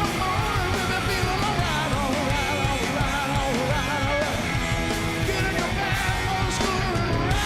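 Loud live rock band playing: electric guitar notes bending and wavering over bass and drums.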